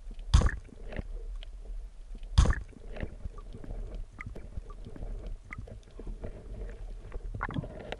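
Underwater, a band-powered speargun fires with a sharp knock just after the start, and a second sharp knock follows about two seconds later. A low steady water rumble and scattered small clicks run under both.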